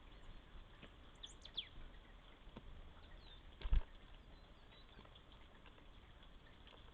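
Small songbirds giving a few short high chirps about a second in, with faint scattered taps and one low thump a little past halfway.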